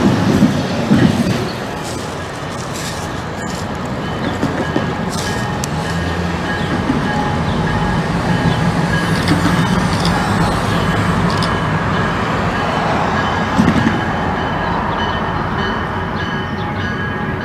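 Diesel switcher locomotive running as it rolls slowly along a yard track, with a steady engine note and a few clunks from the wheels and couplings.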